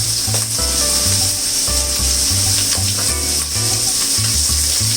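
Tofu and mushrooms frying in a hot pan, a steady sizzle, under background music with a bass line of steady notes changing about every half second.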